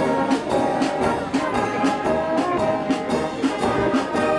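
Brass marching band playing a march as it marches: brass melody and chords over a steady drum beat of about two beats a second.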